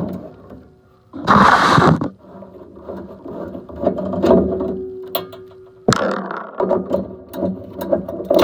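Screws being removed and the sheet-metal burner assembly of a Trane furnace being taken apart by hand: a brief loud rushing burst about a second in, a steady whine in the middle, and many metal clicks and knocks.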